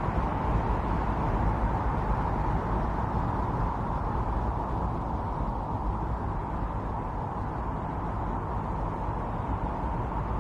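Strong winter storm wind blowing steadily, a deep rushing noise with a faint hollow tone in it, easing a little toward the end.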